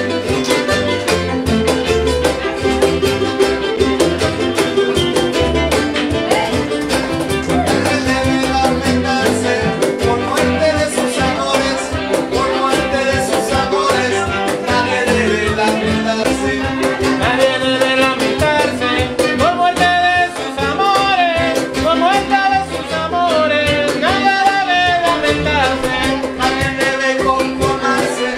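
Live son jarocho band playing: jaranas strummed in a steady rhythm with violin, upright bass and cajón.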